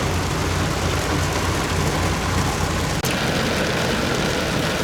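Heavy rain falling as a dense, steady hiss, with a low rumble beneath it that cuts off abruptly about three seconds in.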